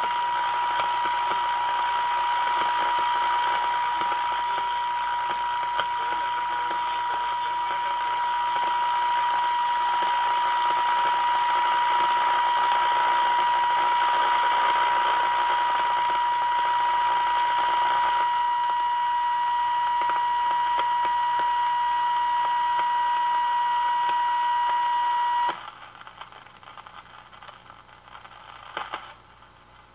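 The RCA Victor 1-X-51 tube radio's speaker plays a steady tone of about 1 kHz over hiss: the modulated 455 kHz IF test signal passing through the set during IF alignment. About 25 seconds in the tone cuts off suddenly. The radio has died, which the repairer puts down to a stuck slug in the first IF can breaking a lead as it was forced round.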